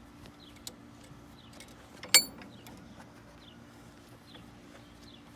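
Bench vise being unwound to release a crushed energy can: faint mechanical creaks and ticks, with a single sharp, ringing metal clang about two seconds in.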